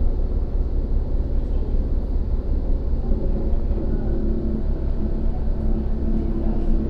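Subway train running, a steady low rumble heard from inside the car; about three seconds in a steady whine joins the rumble.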